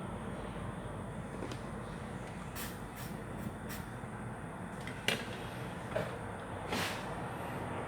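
A series of light, sharp clicks and taps, about eight spread unevenly, the loudest about five seconds in, over a steady background hum.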